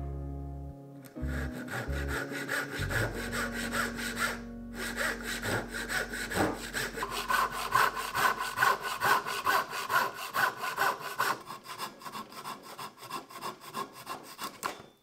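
Hand saw cutting through a small piece of plywood in quick, even back-and-forth strokes, about two a second, after a brief pause about a second in.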